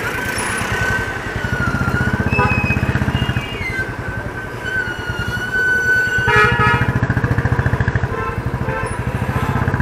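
Royal Enfield Bullet single-cylinder motorcycle engine running at low road speed with an even thumping beat. A vehicle horn sounds briefly about six and a half seconds in.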